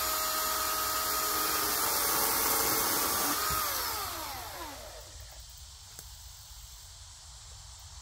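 Milwaukee M18 FUEL 14-inch cordless brushless chainsaw cutting through a fallen log, with a high, steady motor whine and chain hiss. After about three and a half seconds the trigger is released and the whine slides down in pitch as the chain coasts to a stop.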